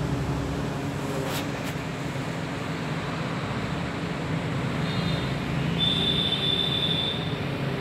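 Steady low mechanical hum under a noisy background, with two faint clicks about a second and a half in and a short, steady high-pitched tone a little past the middle.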